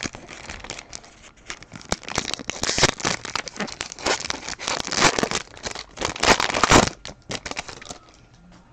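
A foil trading-card pack wrapper being torn open and crinkled by hand: a run of crackling rustles that swells in several loud peaks and stops about a second before the end.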